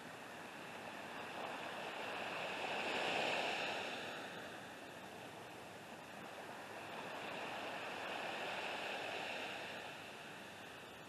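Small waves washing onto a sandy shore: a steady hiss of surf that swells about three seconds in and again around eight seconds, then eases.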